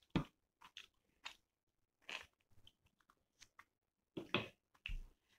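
Close-miked eating sounds of chicken curry and rice eaten by hand: wet chewing and mouth smacks in short, separate bursts, with a louder cluster near the end.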